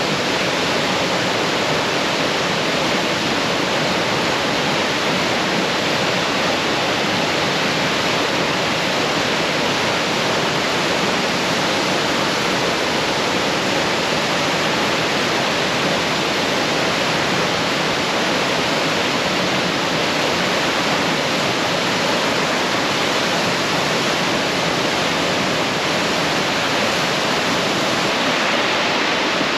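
Waterfall crashing into a rocky pool, a loud steady rush of water.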